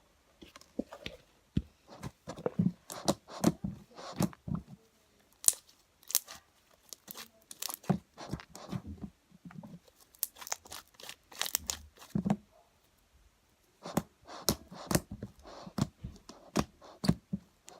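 Irregular crinkling and crackling from hands handling slime-making materials, with a short quiet pause about three-quarters of the way through.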